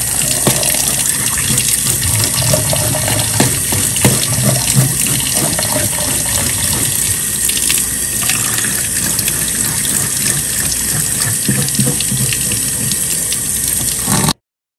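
Tap water running and splashing onto whole fish in a stainless-steel sink as they are rinsed by hand, with a few sharp knocks among the splashing. The sound cuts off abruptly just before the end.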